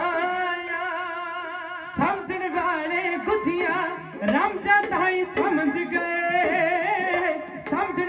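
Punjabi dhadi music: a bowed sarangi melody and male singing over small dhadd hourglass drums, with long held notes at the start and then a moving, wavering melody.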